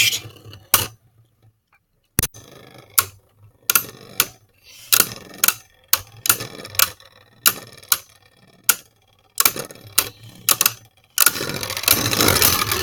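Two plastic Beyblade spinning tops colliding in a plastic stadium: sharp clicks at irregular intervals, often about half a second apart, with quiet between. About eleven seconds in, a continuous rattle starts as one top wobbles and scrapes as it loses its spin.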